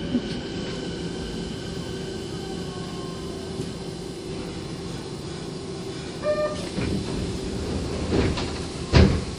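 Kobe Municipal Subway 1000-series train running, its IGBT-VVVF inverter motors whining with steady tones and slowly gliding pitch over the rumble of wheels on rail. A brief tone comes a little after six seconds in, and two loud knocks near the end, the second the loudest.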